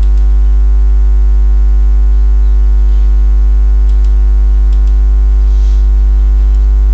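Loud, steady electrical mains hum: a low buzz with a long stack of overtones, unchanging throughout, with a couple of faint clicks about five seconds in.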